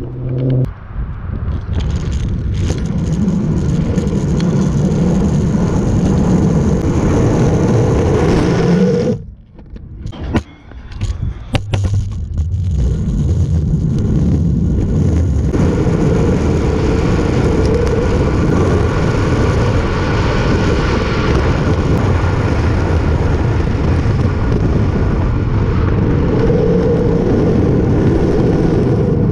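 Longboard's Seismic Alpha urethane wheels rolling fast over very rough asphalt: a steady, gritty rumble heard close up from under the deck, dropping away briefly about nine seconds in.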